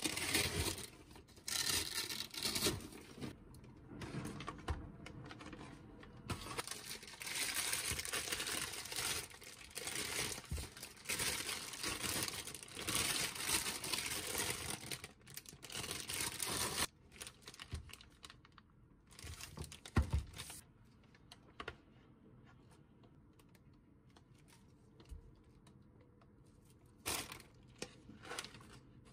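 Plastic food packaging rustling and crinkling as groceries are handled and unpacked from an insulated delivery bag. The rustling is dense through the first half or so, then thins to occasional handling noises and a few knocks.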